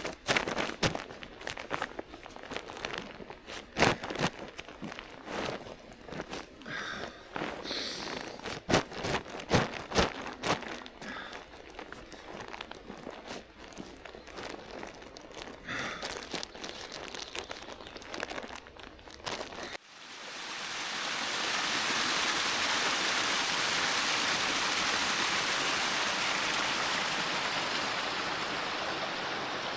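Rustling, crinkling and knocking of camping gear being handled and packed away, with scattered sharp clicks. About two-thirds of the way through it cuts to the steady rushing of a small woodland brook running close by.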